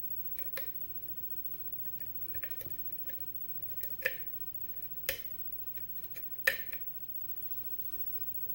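Lock pick clicking inside a 6-pin Sargent pin-tumbler lock cylinder during single-pin picking: about seven sharp, scattered clicks, the loudest two near the end. The picker thinks the clicking is the pick coming off the keyway warding, not pins setting.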